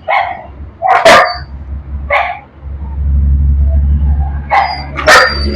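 A dog barking, about five sharp barks spread across a few seconds. About halfway through, a low steady hum starts underneath and keeps going.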